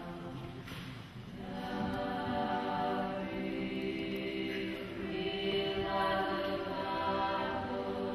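Women's choir singing a Georgian Imeretian folk song a cappella in several parts, holding sustained chords over a steady low note. The voices thin out briefly about a second in, then come back together.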